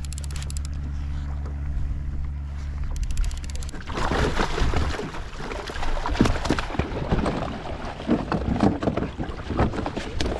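A steady low rumble with brief bursts of rapid clicking, then from about four seconds in, irregular splashing and knocks as a hooked tope thrashes at the side of the kayak and is brought aboard.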